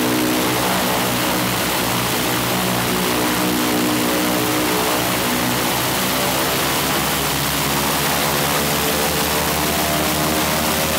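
Shvetsov ASh-82T fourteen-cylinder twin-row radial aero engine on an Ilyushin Il-14T running steadily on the ground during an engine run. It has a loud, even, throbbing note that changes slightly in the low end about seven seconds in.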